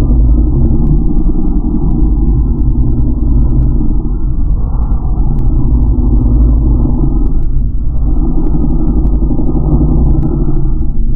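A motor vehicle engine running steadily, loud and muffled, a low droning hum with no sharp changes.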